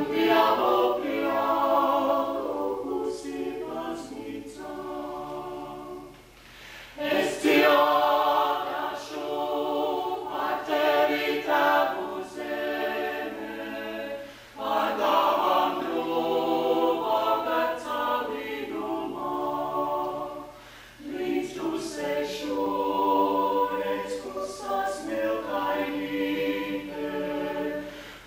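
Small mixed-voice vocal ensemble of men and women singing a cappella in harmony, in phrases with short breaks between them.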